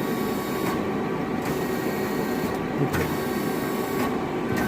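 Femco HL-15B CNC lathe running: a steady mechanical whir with several steady tones, and a high hiss that drops out briefly three times.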